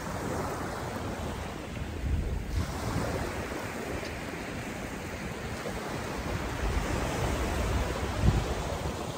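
Small surf breaking and washing up a sandy beach, with wind gusting on the microphone, the strongest gusts about two seconds in and near the end.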